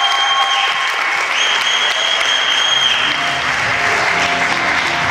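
Audience applauding steadily, with two long, shrill high-pitched calls rising over the clapping in the first three seconds.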